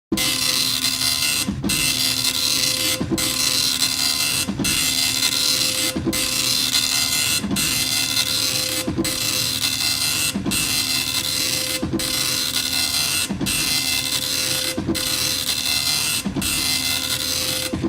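Dot matrix printer printing: the print head rasps steadily across each line for about a second and a half, with a brief pause between lines as the paper advances, repeating evenly.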